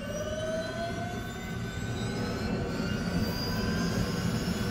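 Helicopter engine starting up, its whine rising in pitch and levelling off near the end over a low rumble, as the rotor begins to turn.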